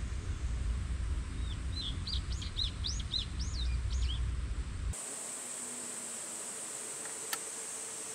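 A songbird sings a quick run of high, arching whistled notes over a low outdoor rumble. About five seconds in, the sound cuts to a steady high hiss with a faint hum, and a single sharp click near the end.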